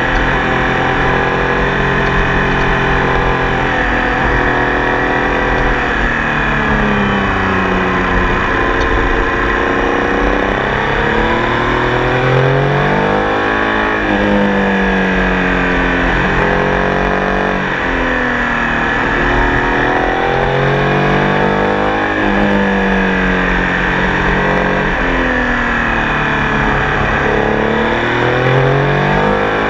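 Triumph Tiger Sport 800 three-cylinder motorcycle engine under way, its revs climbing and falling again and again, every few seconds, as the bike accelerates, changes gear and slows, over a steady rush of wind and road noise.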